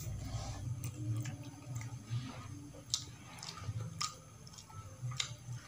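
Close-up mouth sounds of a person eating: quiet chewing with a few sharp clicks and smacks.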